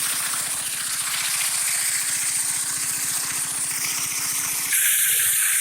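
Water gushing from an irrigation pump's outlet pipe, with the pump's engine running in a fast, even rattle underneath. Near the end the water noise turns brighter and the engine sound drops back.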